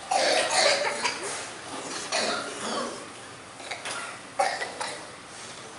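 Several short coughs at irregular intervals.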